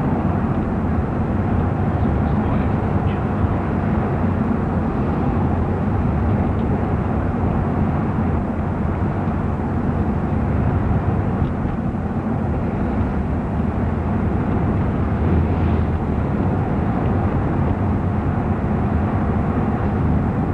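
Steady drone of a moving car's engine and tyres, mixed with the noise of surrounding traffic, picked up through an open car window.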